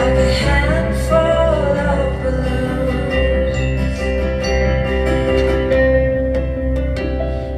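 Live band playing a song on acoustic guitar, keyboard and cello, with a woman singing.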